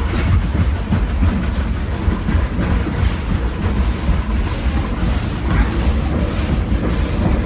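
Passenger railroad car rolling along the track, heard from on board: a steady low rumble with the wheels clicking irregularly over the rails.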